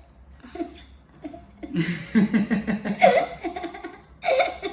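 People laughing: a quiet moment, then from about two seconds in a run of quick, pulsing laughs that carries on to the end.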